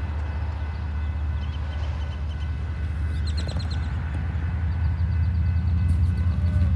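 Low rumble of an approaching Union Pacific freight train's GE diesel-electric locomotives, growing slowly louder. Birds chirp briefly about three to four seconds in.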